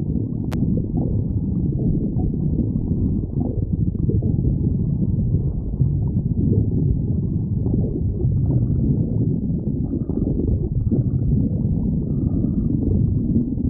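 A raccoon's stomach growling: a steady low rumble with many small irregular gurgles, heard close up.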